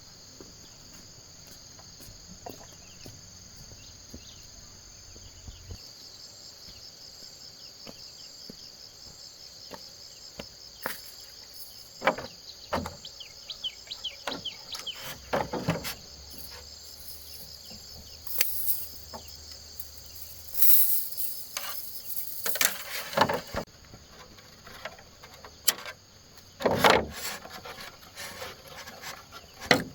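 Insects chirring steadily in a high pitch, with scattered sharp knocks and several louder bursts of rustling noise.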